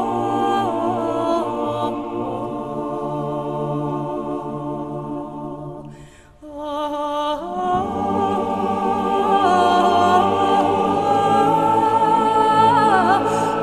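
A group of voices singing unaccompanied in long held notes. The singing breaks off for about a second some six seconds in, then starts again.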